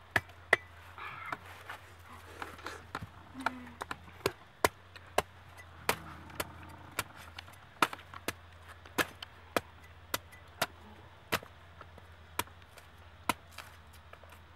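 A cleaver chopping into the fibrous husks of whole palm fruits: sharp, separate strikes, about twenty in all, coming every half second to a second at an uneven pace.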